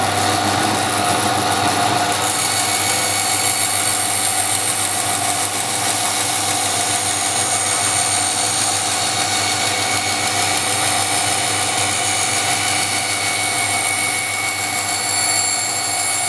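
Startrite bandsaw running with no cut being made: a steady electric motor hum under the hiss of the moving blade and wheels.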